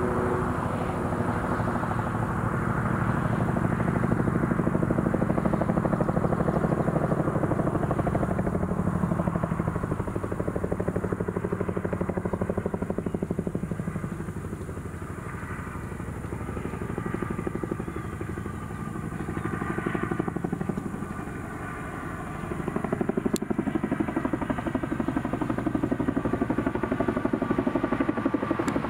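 Boeing CH-47 Chinook tandem-rotor helicopter flying in on approach, its rotors beating in a fast, even rhythm. The sound drops somewhat around the middle, where a few steady high tones come through, then grows louder again.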